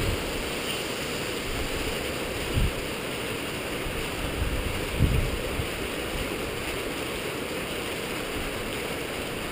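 Steady rushing noise of rain and wind on a windy, rainy night, with low thumps of wind buffeting the microphone about two and a half and five seconds in.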